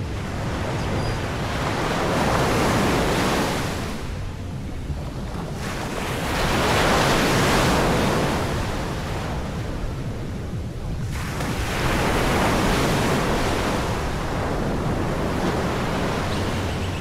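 Sea waves breaking on a beach: three swells of surf noise, each rising and falling over a few seconds, about five seconds apart, over a steady rumble of wind on the microphone.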